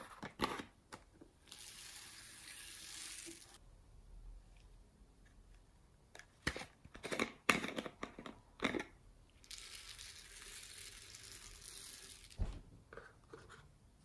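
Small foam beads poured out of plastic bottles onto slime: a steady rushing hiss, twice, each about two to three seconds long. Between the pours come sharp clicks and crinkles of the plastic bottles being handled and opened.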